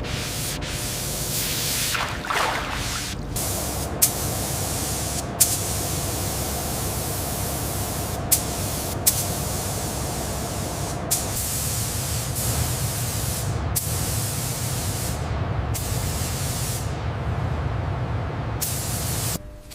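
Continuous hissing spray, like a spray gun or jet in use, with a steady low hum under it. It is cut into short segments by several abrupt breaks and clicks, and stops suddenly near the end.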